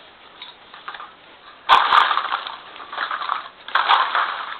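Cups clattering and crinkling as a dog noses and pushes through them, being knocked and crushed. After a quieter start come three bursts of rustling with sharp clicks, the first beginning suddenly.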